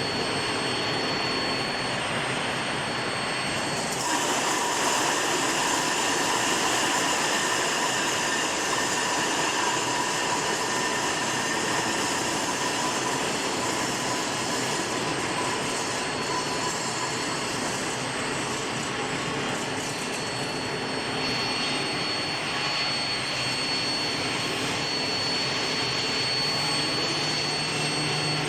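Steel bar induction heat-treatment production line running: a steady hiss with a thin high whine over it. The mix of tones shifts about four seconds in and again around twenty-one seconds.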